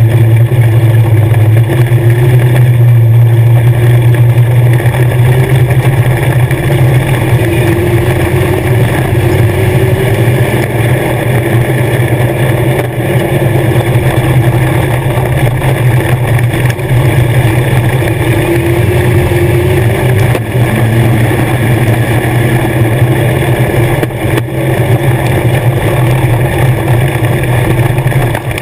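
Legends race car's Yamaha four-cylinder motorcycle engine running loud and fairly steady, its pitch wavering only slightly, heard from inside the car's cockpit.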